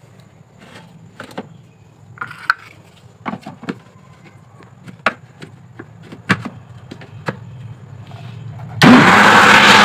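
Plastic lid and jar of an electric blender knocking and clicking as they are fitted into place, then near the end the blender's motor starts suddenly and runs loudly and steadily, churning a yogurt, gram-flour and water mix for kadhi.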